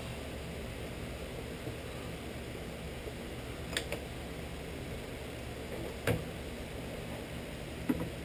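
A V-belt being shifted by hand on the Shopsmith's aluminium step pulleys to change speed range, giving a few sharp clicks and knocks, the loudest about six seconds in, over a steady low hum.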